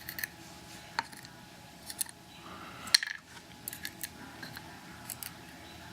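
Light, scattered metallic clicks and taps as the small metal parts and pins of a disassembled Mul-T-Lock 7x7 cylinder are handled and set down, the sharpest about three seconds in.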